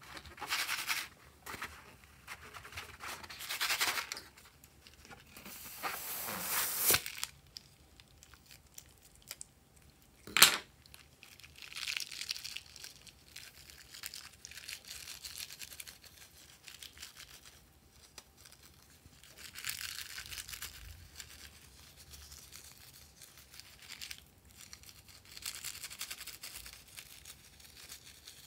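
Rustling and crinkling as a rubber balloon full of pink sprinkles is handled and squeezed so the sprinkles pour out into a hand, in several separate bursts. One sharp snap about ten seconds in.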